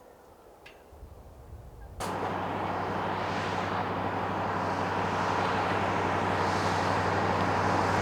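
A motor running steadily with a low hum under loud, even noise, which starts abruptly about two seconds in.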